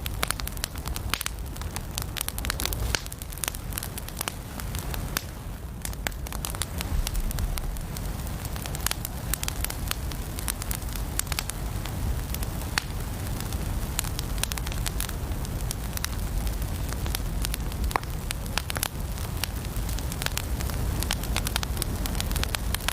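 Wood fire burning in a fireplace: frequent sharp crackles and pops over a steady low rumble of the flames.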